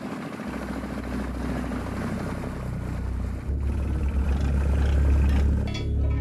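Boat engine running steadily with a low hum, growing louder about three and a half seconds in.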